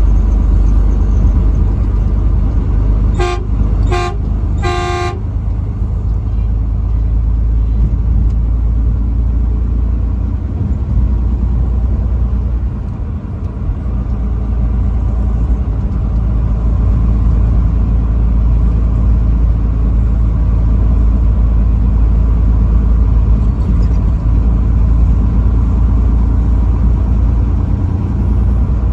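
Truck horn sounded three times in quick succession a few seconds in, the third blast the longest, over the steady low rumble of the truck driving at highway speed.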